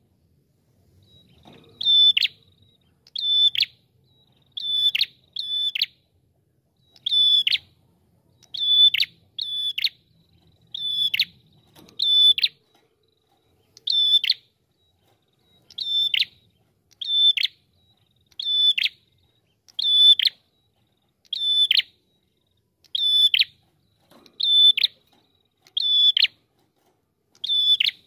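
Ashy tailorbird (prenjak kepala merah) singing a steady series of loud, short whistled notes, each clipped off with a quick downward flick. The notes come singly or in pairs about once a second.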